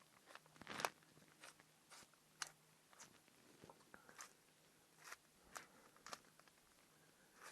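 A metal can of corned beef being opened: a faint string of sharp clicks and snaps coming irregularly, about one every half second, with the loudest about a second in.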